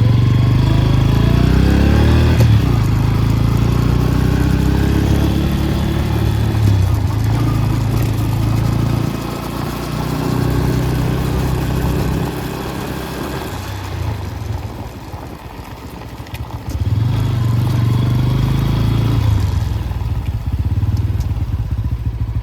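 Bajaj Pulsar N160's single-cylinder engine and drive chain on the move, heard close to the chain: the revs rise and fall, easing off for a few seconds past the middle. This is a test of the newly fitted Rolon brass chain, running a little slack.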